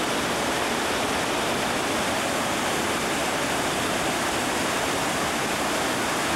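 Rushing whitewater pouring over rocks: a loud, steady, unbroken rush of water noise.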